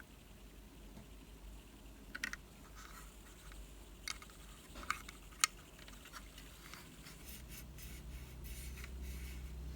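Hands handling unboxing packaging and small items: light scratching with a handful of sharp clicks spread across several seconds, and a low hum coming in over the last couple of seconds.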